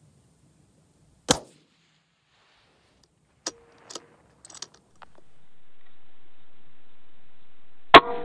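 .223 Remington bolt-action rifle fired once about a second in: a single sharp report with a short tail. A few light clicks follow as the bolt is worked, and another sharp report comes near the end.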